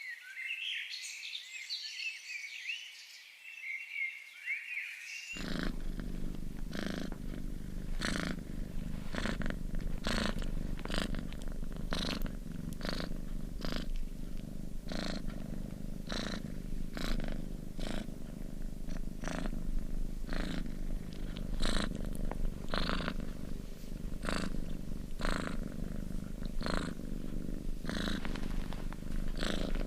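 Small birds chirping for the first few seconds, then a cut to a steady low animal rumble that pulses with regular breaths a little over once a second.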